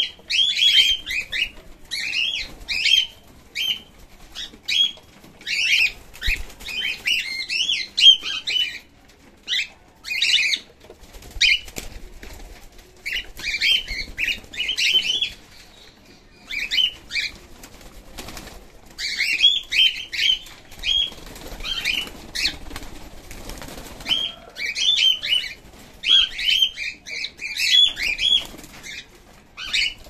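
A flock of cockatiels calling in quick bursts of short chirps, with short pauses between bursts and one longer lull past the middle, and wings flapping as birds flutter about.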